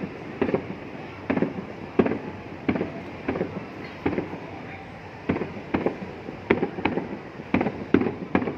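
Aerial fireworks bursting in quick succession, a sharp bang about every half second to a second, each followed by a short echo.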